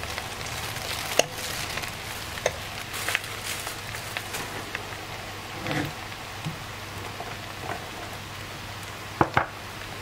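Diced pork and candied winter melon sizzling in a pan as they are stir-fried with a metal spoon, with scattered scrapes and knocks of the spoon against the pan, two of them close together near the end.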